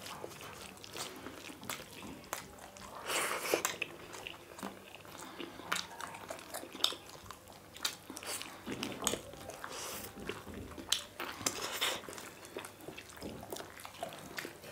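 Two people eating chicken wings and rice with curry by hand: irregular chewing, biting and wet smacking, with many short clicks.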